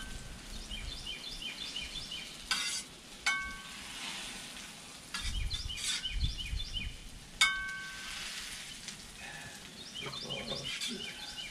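Boiled potatoes sizzling on a Blackstone flat-top griddle as they are pressed flat with a round metal smasher and a steel spatula, with metal scraping on the griddle plate. Two sharp ringing metal clinks, about three seconds in and about seven seconds in.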